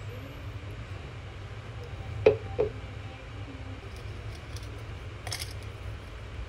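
Two quick hollow knocks of a plastic measuring jug being set down after pouring, about two seconds in, then a brief crinkly rustle near the end, over a steady low hum.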